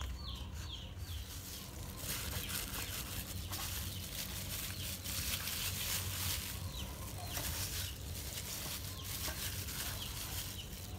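Chickens clucking briefly near the start, then a steady outdoor hiss with faint rustles and taps as a raw chicken is handled in a steel bowl with plastic-gloved hands.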